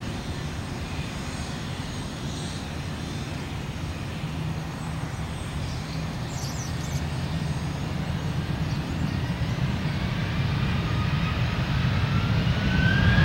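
Jet engines of taxiing airliners at low power: a steady low rumble that grows louder in the second half, with a whine rising in pitch near the end.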